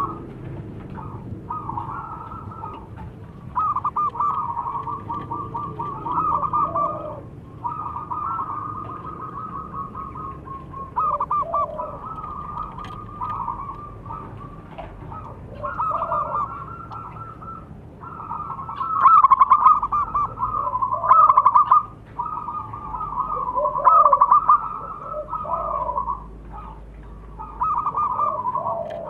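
Zebra doves cooing: phrase after phrase of rapid, stuttering coos with short gaps between them. The loudest phrases come about two-thirds of the way through.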